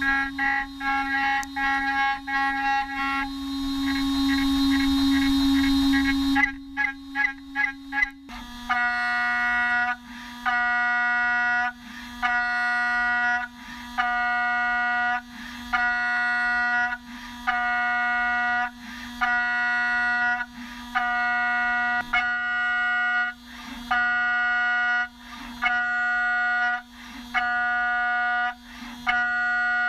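Electronic background music: a low steady drone under a synth chord that pulses rapidly at first, breaks off briefly about seven seconds in, then comes back as a held chord repeating roughly every one and a half seconds.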